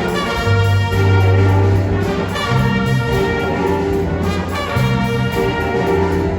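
Music led by brass instruments playing held notes over a steady bass line.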